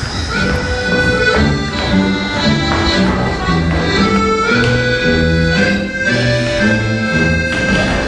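Instrumental music: a melody of held notes over a bass line that steps from note to note.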